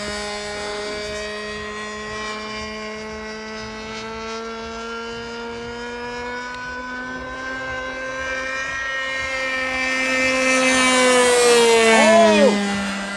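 Rossi 45 two-stroke glow engine with a tuned pipe, driving a model flying wing in flight with a steady high-revving buzz. It grows louder as the plane comes closer, then its pitch drops as the plane passes, near the end.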